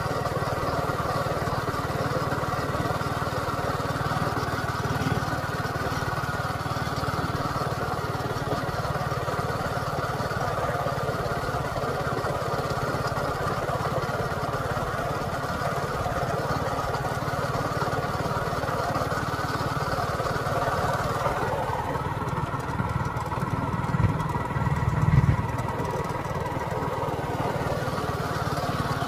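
A small engine running steadily. Its sound changes about two-thirds of the way through, and a few louder low bumps follow soon after.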